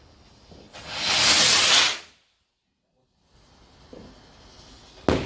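A firework hissing loudly for about a second, then after a pause a single sharp bang near the end.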